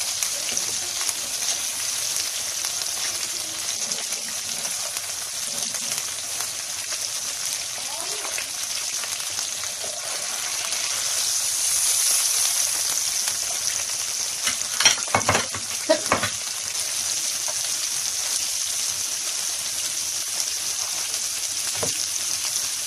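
Köfte meatballs and long green peppers frying in a pan, in the fat rendered from the mince, with a steady sizzle. Just past halfway comes a short cluster of sharp clicks and knocks.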